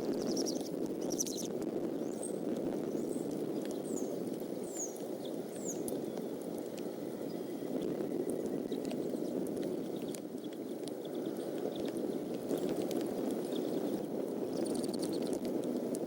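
Steady rain noise with scattered drops ticking. Short runs of high, thin, downward-sliding bird chirps come near the start, again a few seconds in, and near the end.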